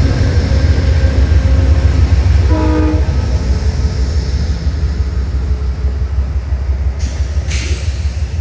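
Amtrak's Lake Shore Limited passenger train rumbling past as it departs, with a heavy low rumble that slowly fades, and a short horn note about two and a half seconds in.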